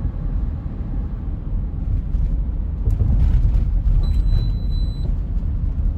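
Steady low rumble of a moving vehicle, with a single high-pitched beep lasting about a second, starting about four seconds in.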